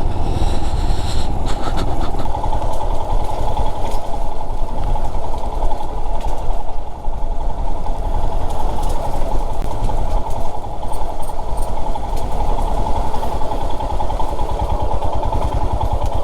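Royal Enfield Himalayan motorcycle's single-cylinder engine running steadily while riding an off-road trail.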